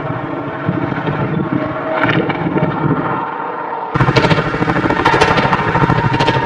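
Chainsaw engine running steadily, then abruptly louder and fuller about four seconds in.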